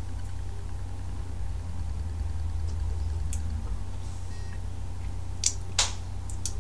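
Steady low hum in a small room, with a few short mouth and swallowing noises as a dose of cough syrup is drunk: one about halfway through and two close together about a second before the end.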